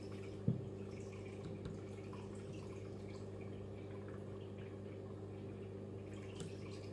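Steady low hum, with one sharp click about half a second in and a few faint ticks from small plywood model parts being handled.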